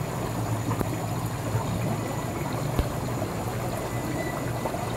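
Aquarium water bubbling and trickling steadily as air and filter outflow break the tank's surface, over a low steady hum. There is a single soft knock a little before the three-second mark.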